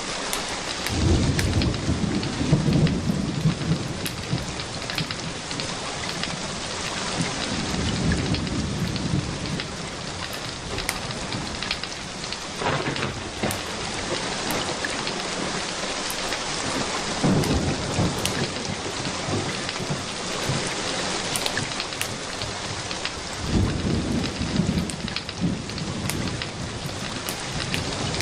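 Steady rain, with four low rolls of thunder, each lasting a couple of seconds.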